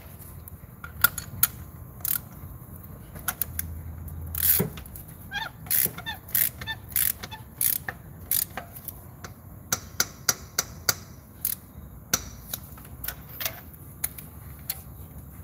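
Socket ratchet wrench clicking in short irregular clicks, with a few metal clinks, as a spark plug is turned in the cylinder head's plug well.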